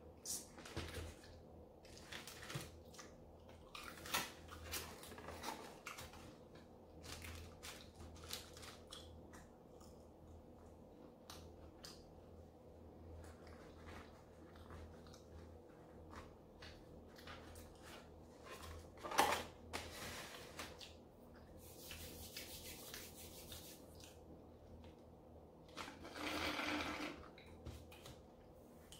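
Quiet handling of styrofoam takeout containers: rubbing and small clicks as a foam clamshell is closed, with a sharper knock about 19 seconds in. A straw is sipped from a foam cup near the start.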